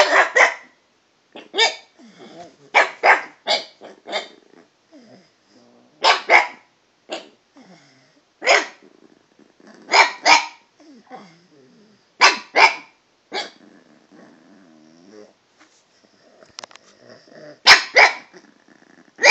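Pug barking in short, sharp barks, often in quick pairs, at varied pitches, with quieter growling between them.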